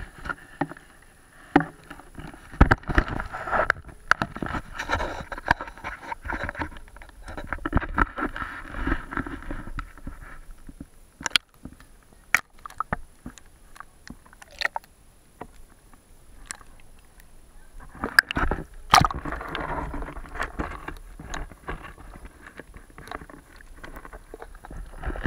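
Water sloshing and gurgling around a camera held under the lake surface, with scattered sharp clicks and knocks of the camera against the dock; it goes quieter for several seconds in the middle.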